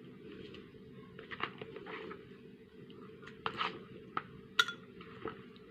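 Scattered light clinks and taps of cutlery and dishes being handled, with the sharpest click about four and a half seconds in, over a low steady room hum.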